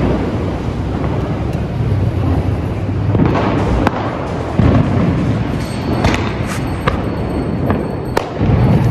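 Diwali fireworks and firecrackers going off all around: a steady rumble of distant bursts, scattered sharp pops and cracks, and a few louder booms, about three seconds in, at four and a half seconds and near the end.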